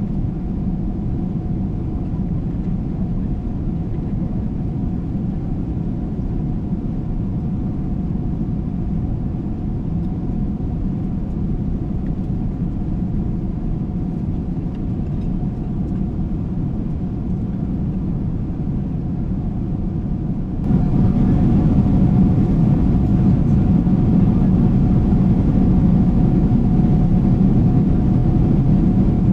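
Steady cabin drone of a Boeing 777-300ER in cruise: engine and airflow noise from its GE90-115B engines, with a faint steady hum. About two-thirds of the way through it jumps suddenly louder and brighter, then holds steady.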